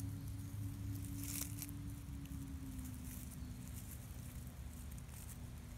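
Baby raccoons rustling through dry leaf litter and grass in a few brief bursts, the clearest about a second and a half in, over a steady low engine hum.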